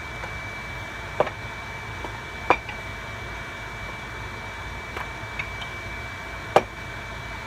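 Stove vent fan running steadily with a thin high whine, with a few sharp clinks and knocks of kitchenware at the stove, the loudest about two and a half and six and a half seconds in.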